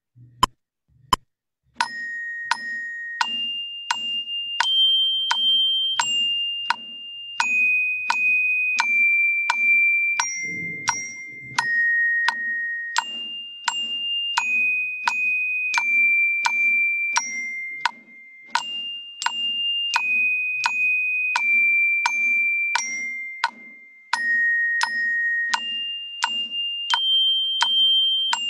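Keyboard percussion with a bell tone, like orchestra bells, playing a simple stepwise melody at a moderate steady tempo, with a metronome clicking on every beat. A few count-off clicks come first, and the melody starts about two seconds in.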